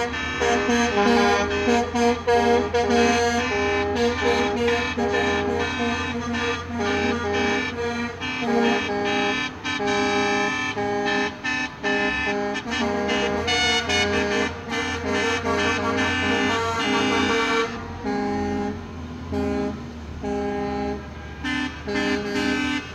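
Music playing: held notes and chords that change every second or so, over a steady low hum.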